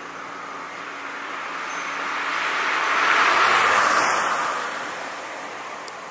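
A car driving past on a paved road: its tyre and engine noise swells to a peak about three and a half seconds in, then fades away.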